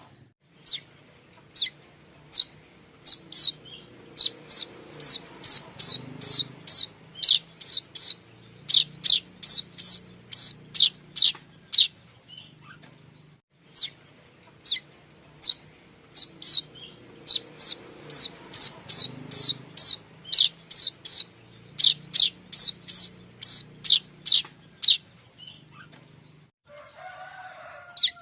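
Streaked weaver (manyar kembang) calling: a long series of short, sharp, high-pitched chips, about two to three a second, in two runs of roughly twelve seconds with a brief break between them.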